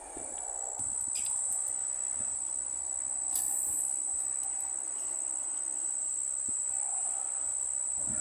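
Steady high-pitched buzzing of insects in the marsh vegetation, holding one unbroken tone. A brief hiss about three and a half seconds in.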